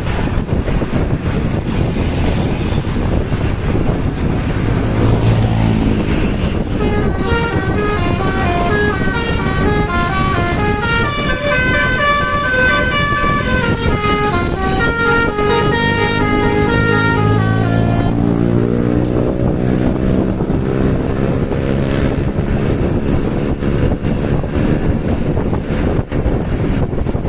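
Tour bus engine running through a loud exhaust, with its telolet basuri multi-tone musical horn playing a stepping melody from about a quarter of the way in until about two thirds through. After the horn stops, the engine's pitch rises as it speeds up.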